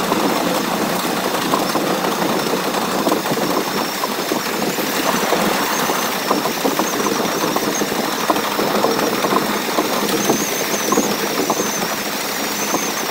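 Onboard sound of a New York City Subway R62A train running on elevated track, played back at four times speed: a dense, rapid rattle of wheel clatter and car noise. A thin, high, wavering whine joins in about five seconds in.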